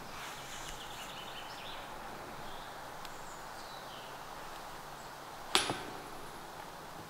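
Steady outdoor background noise, broken about five and a half seconds in by a single sharp knock that rings briefly after it.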